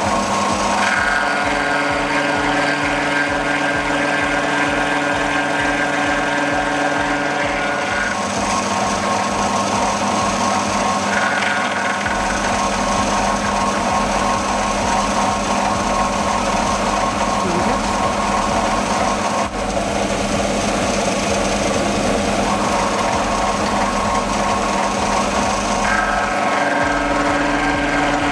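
Benchtop milling machine running, its face mill cutting across the top of a metal workpiece held in a vise. It makes a steady motor and gear whine whose tones change a few times as the cut goes on.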